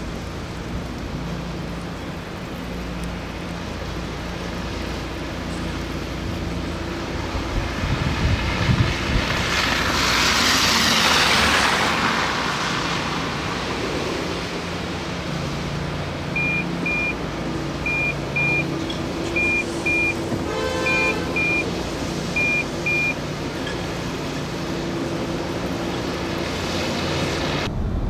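Car driving on a road: steady engine and road noise, swelling for a couple of seconds as a vehicle passes about a third of the way in. In the second half come short high electronic beeps in pairs, roughly every second and a half.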